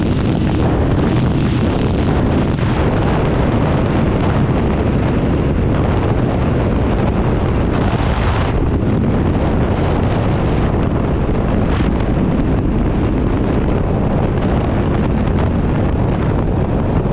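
KTM 390 Duke BS6's single-cylinder engine and exhaust running at a steady level, heavily buffeted by wind on the microphone.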